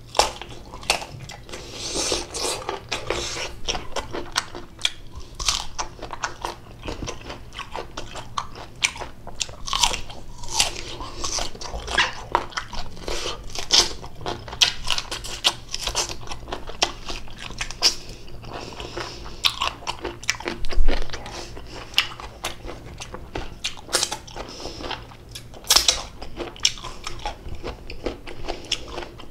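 Close-miked biting and chewing of raw green mango, with many sharp, crisp crunches at an irregular pace.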